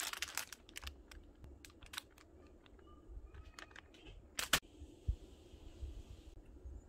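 Plastic packaging of an embroidery kit being handled: light crinkles and scattered sharp clicks and taps, with a dense crackle at the start and a louder click about four and a half seconds in, followed by a soft rustling hiss for a couple of seconds.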